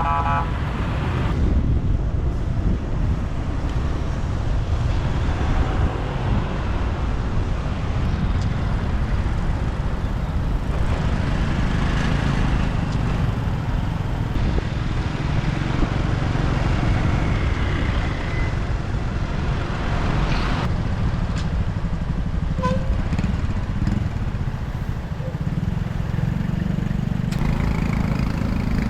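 Motorbike riding in city traffic: steady engine, tyre and traffic noise. A brief vehicle horn toot sounds right at the start.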